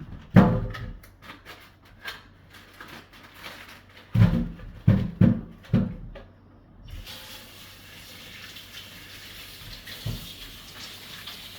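Several hard clunks of things being handled at the sink, then a kitchen tap turned on about halfway through and running steadily, rinsing an ear of corn.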